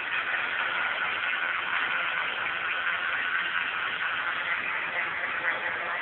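Old Dresden metal lathe running steadily, giving an even mechanical hiss and whir.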